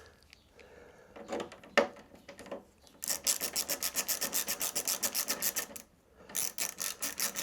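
A hand ratchet clicking rapidly, about ten clicks a second, as a Torx screw on a motorcycle body panel is run in. It goes in two runs: a long one of about three seconds, then a short one after a brief pause near the end.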